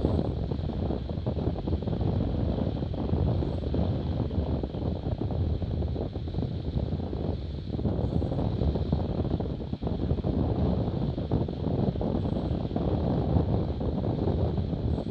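Wind buffeting the microphone in a steady low rumble over the rush of water and spray along the hulls of an F18 catamaran sailing fast.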